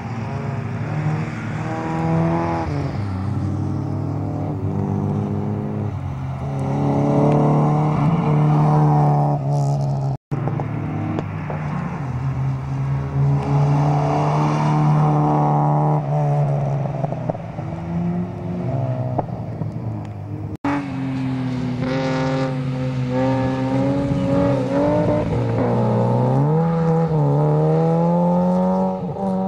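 Toyota Corolla AE86 coupe engine revving up and down hard as the car slides sideways through wet corners, the pitch climbing and falling with each throttle blip and shift. The sound cuts out briefly twice, about a third and two thirds of the way through.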